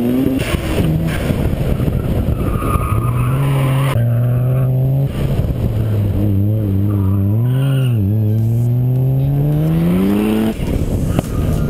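Mazda RX-7 (FD3S) race car engine heard onboard under hard acceleration: the engine note climbs, holds, dips briefly about eight seconds in, then climbs again before dropping sharply near the end.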